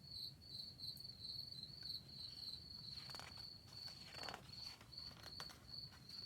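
Crickets chirping faintly: a steady, rapidly pulsing high trill, with two soft swishes about three and four seconds in.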